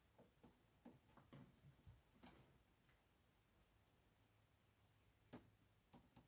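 Faint, light ticks and taps of a small hammer barely tapping a decorative nail, spaced irregularly, with a sharper click about five seconds in.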